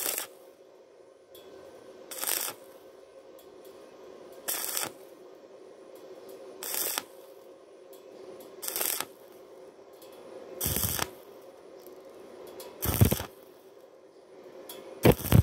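Stick (arc) welding on thin galvanized steel tube in stop-start fashion: the arc is struck in short bursts of about half a second, roughly every two seconds, with a steady hum between bursts. Breaking the arc between bursts is the usual way to keep thin metal from burning through.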